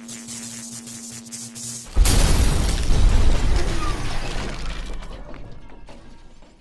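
A steady electrical buzz, then about two seconds in a sudden loud crash as a sledgehammer smashes an old television set, with glass shattering. The crash dies away over about four seconds.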